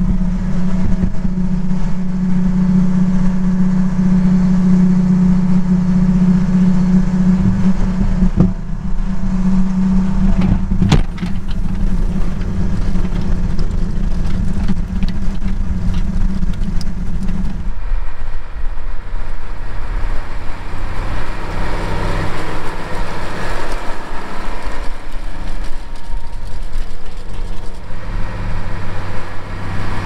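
Case IH tractor's diesel engine running steadily under load while the rotary hoe's spoked wheels churn and rattle through the soil, with a couple of sharp knocks near the middle. About two-thirds of the way through the steady engine hum drops away and a broader rushing noise of the tractor and hoe working the field takes over.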